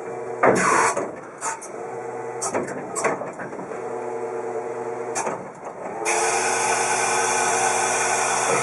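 Clark GEX50 electric forklift's motor and hydraulics running: a steady multi-tone electric whine with several clicks and clunks, then about six seconds in a loud rushing hiss joins the whine.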